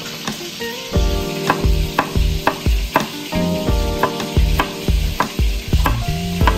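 A knife chopping garlic cloves on a wooden cutting board: sharp taps about twice a second. They sit over a steady hiss and background music with a regular beat.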